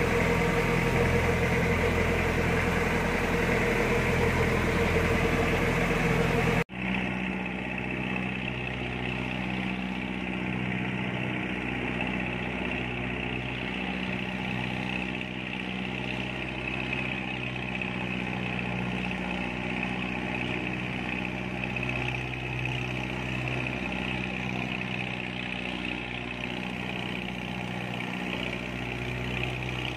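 A fishing boat's engine running steadily at sea. About seven seconds in the sound breaks off sharply and comes back a little quieter.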